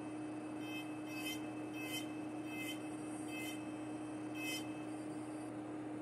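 Faint steady low hum, with about six soft, brief scuffs over the first four and a half seconds as the wooden carving is handled.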